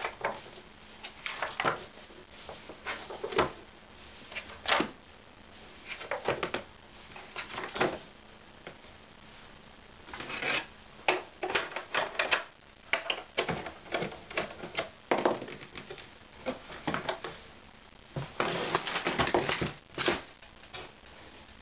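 Homemade plywood book-scanner cradle and the old book in it being handled: irregular wooden clicks and knocks as its parts move and settle, with pages riffling. Near the end a longer spell of close rustling and clattering.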